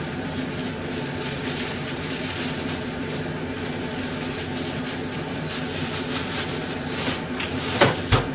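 Steady kitchen noise: a fan-like hum with food sizzling and simmering in pans on a gas stove on medium heat. Near the end comes a brief squeak and a knock.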